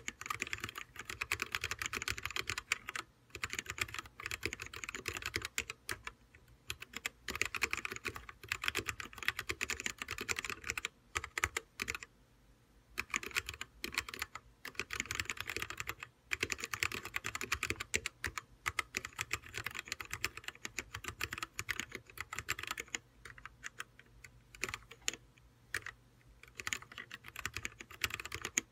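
Typing on an OLKB Planck 40% ortholinear mechanical keyboard with Kailh yellow switches: fast runs of keystrokes with short pauses, the longest about twelve seconds in.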